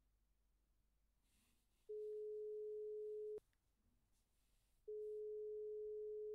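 Telephone ringing tone heard through a handset: a steady beep of about one and a half seconds starting about two seconds in, then a second identical beep after a gap of the same length.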